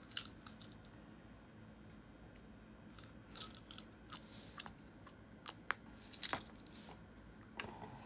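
Scattered light clicks and faint rustling from small metal lock parts and tools, such as thin shims, being handled and sorted.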